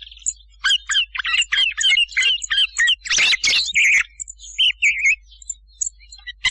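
Thrush song played back as a hunting lure call: several bursts of quick, varied chirps and whistled notes separated by short pauses, fading to scattered faint notes for the last second or so.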